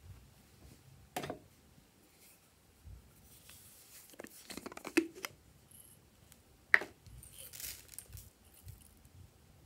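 A small plastic container handled and opened, giving scattered plastic clicks and knocks with a sharp snap about two-thirds of the way in, then a soft rustle as star-shaped confetti is poured out into a hand.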